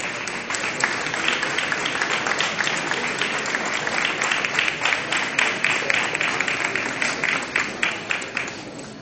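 Audience applauding, a dense patter of many hands that swells in the first second and fades out near the end.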